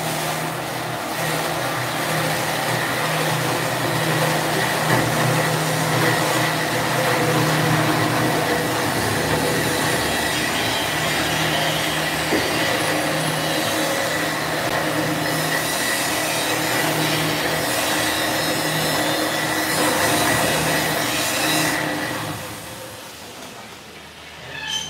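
Meat bowl cutter running steadily, a hum with a high whine, as it chops meat for meatball dough; it winds down and falls away about 22 seconds in.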